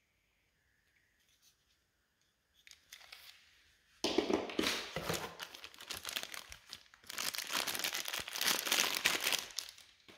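Packaging crinkling and rustling as it is handled and unwrapped. It is faint at first, then comes in two long, loud spells of crackling about four and seven seconds in.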